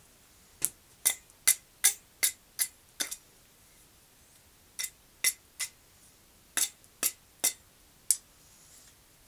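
Blacksmith's hand hammer striking an iron bar on the anvil: about fifteen sharp, ringing blows in three runs, a quick run of eight at two to three a second, a pause, then three, then four.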